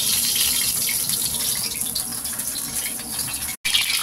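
Cooking oil pouring in a thin stream into an empty iron kadhai, a steady gushing trickle. The sound cuts out for an instant a little before the end.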